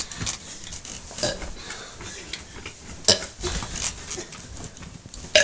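A person burping, short irregular burps, with a sharp click about three seconds in and another near the end.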